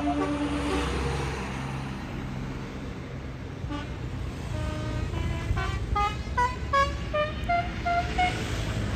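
Tour bus's Basuri telolet horn, a multi-tone horn, playing a tune of short notes stepping up and down over the bus engine running. A held note ends near the start, and the tune begins about halfway in.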